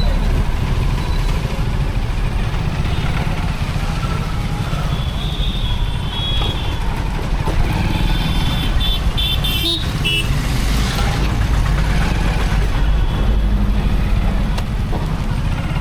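Motorcycle riding through town traffic: a steady low rumble of the bike and road, with vehicle horns beeping around five seconds in and again around eight to ten seconds in.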